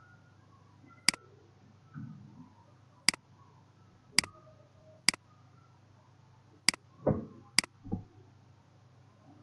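Computer mouse button clicking: six sharp, separate clicks at uneven intervals, with a few duller, lower thumps between them, the longest just before the last click.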